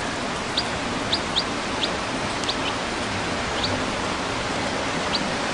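Day-old chicks peeping: about eight short, high chirps scattered irregularly over a steady hiss.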